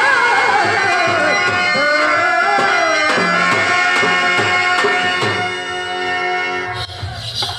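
Harmonium and tabla stage accompaniment to a Telugu verse-drama song: the singer's wavering last note fades about a second in, then the harmonium holds steady chords over regular tabla strokes, thinning out near the end.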